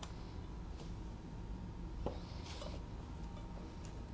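Faint handling noise: a few light metal clicks and a soft scrape as a MINI Cooper S flywheel is held up to the engine's crankshaft.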